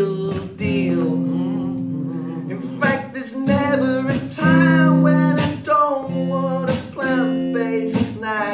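A man singing while strumming chords on an electric guitar.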